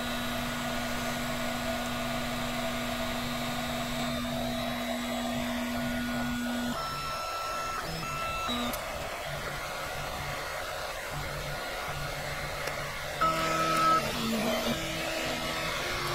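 Large enclosed 3D printer starting a print: its fans run with a steady rush while the stepper motors hum in held tones as the build plate lifts and the axes home. The motor tone stops about two-thirds of the way through the first half and gives way to shorter tones that change pitch several times, briefly louder a little over three-quarters of the way through.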